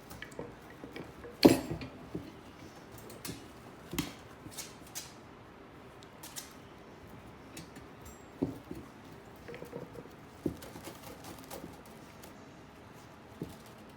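A Shiba Inu puppy moving about: scattered light patters, clicks and scratches with a few knocks, the loudest about a second and a half in.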